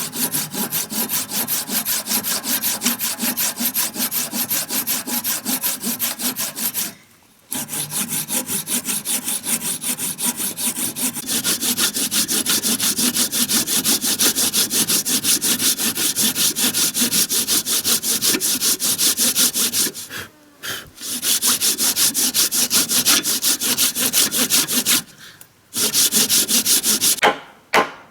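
Hand saw cutting through wood in quick, even back-and-forth strokes, stopping briefly about seven seconds in, twenty seconds in and twenty-five seconds in.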